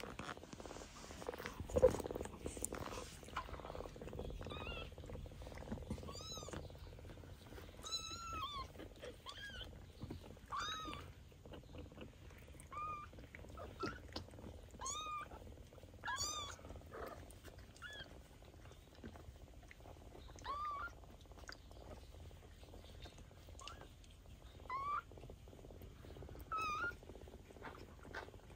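A kitten mewing over and over in short, high cries, one every second or two, over steady low purring. There is a single sharp thump about two seconds in.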